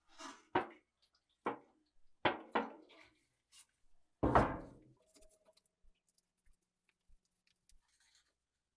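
A series of knocks and thunks as parts are handled and set down on a workbench: five or six knocks in the first few seconds, the loudest about four seconds in with a brief ring, then a few faint light ticks.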